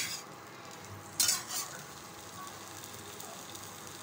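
Spatula stirring fried okra and potato strips in a nonstick kadai, with two sharp scraping strokes at the start and about a second in. Between and after them, vegetables frying in oil give a steady, quieter sizzle.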